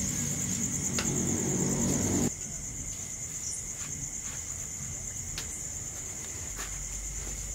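Crickets chirping in a steady high trill. Under the first two seconds is a louder low hum, which cuts off abruptly.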